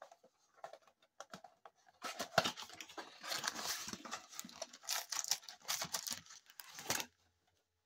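Cardboard blaster box of trading cards being torn open by hand: a few light handling clicks, then about five seconds of tearing and crackling cardboard that stops sharply near the end.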